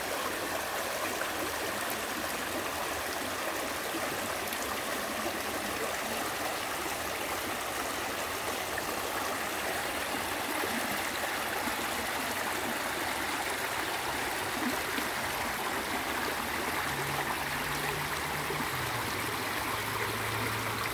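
Mountain stream flowing, a steady rushing and gurgling of water. A faint low hum joins it near the end.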